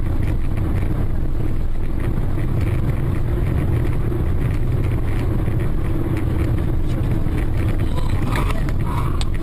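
Steady low rumble of a moving vehicle: engine and road noise, unchanging throughout, with a few faint short sounds near the end.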